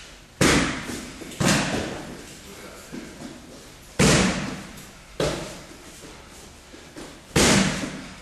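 Kicks smacking into handheld focus pads: three loud strikes about three and a half seconds apart, each followed about a second later by a lighter strike, echoing in a large hall.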